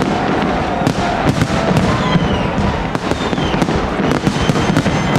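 Large fireworks display going off: a rapid, irregular run of bangs and crackles over a constant rumble, with a few thin whistles gliding in pitch over the top.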